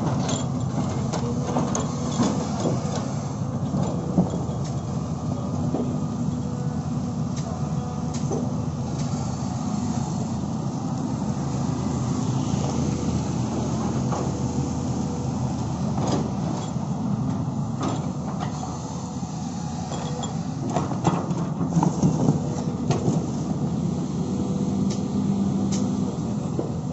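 Diesel engine of a Hyundai long-reach hydraulic excavator running steadily as it works its boom, with a crawler bulldozer's engine running nearby. Scattered sharp knocks and clanks sound over the drone.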